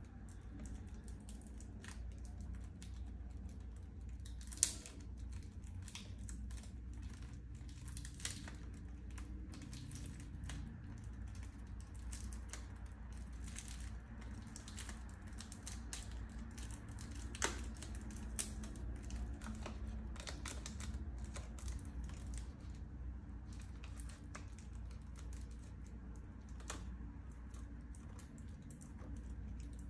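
Fingers picking at a plastic CD jewel case and its seal, making a run of small irregular clicks and crinkles. Two sharper plastic clicks stand out, one about four and a half seconds in and one about seventeen and a half seconds in, over a steady low hum.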